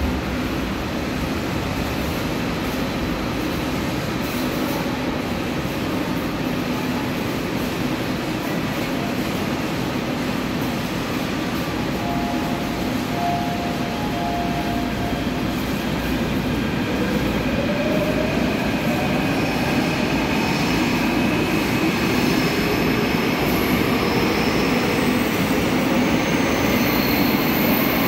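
Seoul Subway Line 7 train in the station's tunnel: a steady rail rumble, joined in the second half by an electric motor whine that rises in pitch and grows louder.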